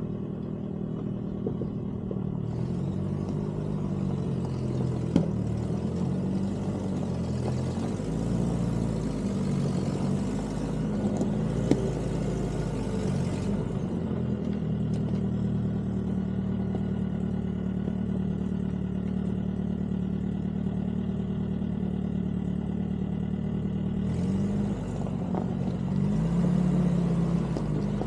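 M151 military jeep's four-cylinder engine running at low speed, its pitch rising and falling as the jeep is turned around back and forth, steadier through the middle. Two sharp knocks stand out, about five and twelve seconds in.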